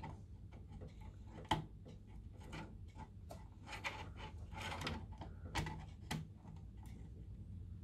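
Scattered small plastic clicks and knocks, about half a dozen, as a PCIe power cable's connector is handled and pushed into the power socket of a Gigabyte GTX 1660 Super graphics card.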